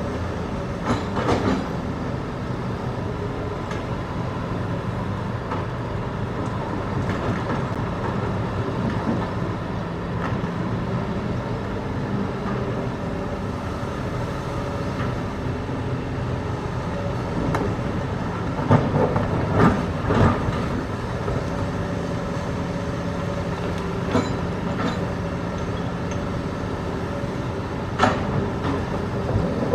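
Hitachi ZX210 excavator's diesel engine running steadily under load, with the steel bucket clanking and knocking against rock several times, a cluster of the loudest knocks about two-thirds through and another near the end.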